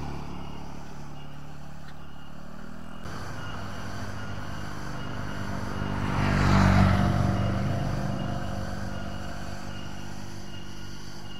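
Motor scooter riding past close by, its engine swelling to the loudest point about six to seven seconds in and then fading, over a steady low engine hum.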